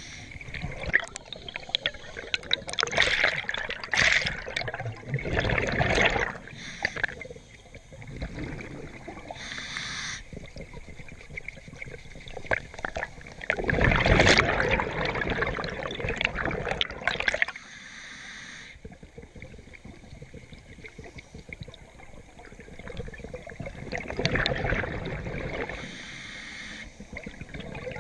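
Scuba diver's regulator breathing underwater: long crackling bubble bursts of exhaled air, about three in all, each followed by a short hiss of inhalation through the regulator.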